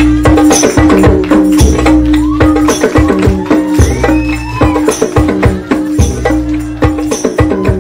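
Hadroh ensemble playing a koplo-style rhythm on hand-held frame drums (rebana) and other hand percussion. Deep bass-drum thumps fall about once a second under a dense run of quicker hand strokes and jingles.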